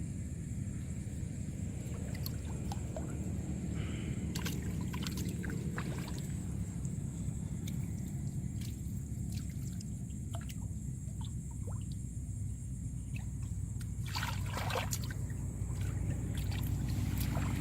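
Small splashes and trickling water over a steady low rumble, with a louder splash near the end.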